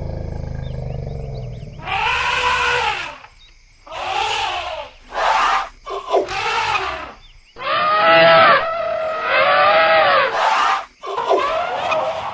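Elephants calling: a low rumble at first, then a string of about eight trumpeting calls and cries, each rising and falling in pitch, some overlapping.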